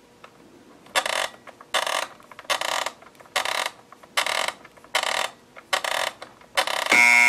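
A knob on a Panasonic RC-6530 flip clock radio being turned, giving a row of short mechanical ratcheting strokes about one every 0.8 seconds. Near the end the alarm trips and the clock radio's buzzer comes on with a loud, steady buzz.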